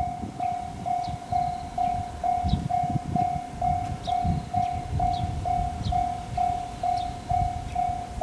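Japanese level-crossing warning bell ringing in a steady 'kan-kan' rhythm, a little over two strikes a second, with a low rumble underneath.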